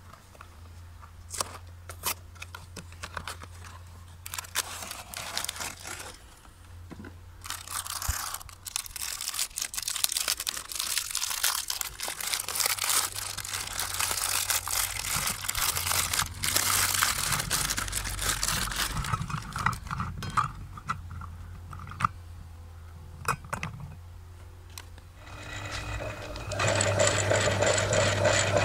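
Cardboard cookie box handled and opened, then plastic cookie wrappers tearing and crinkling at length with small clicks and knocks. About 26 seconds in, an electric meat grinder's motor starts and runs with a steady hum.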